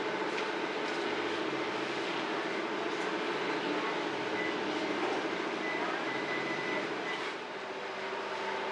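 Steady running hum and rumble of bakery machinery, with a faint thin whine in the middle.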